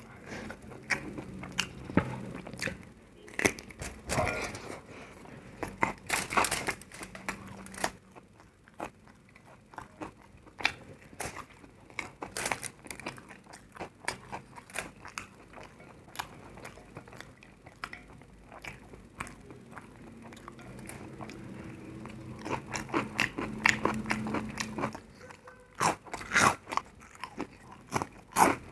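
Close-up crunching of crisp food: irregular sharp bites and chewing crunches, coming in clusters with short lulls between.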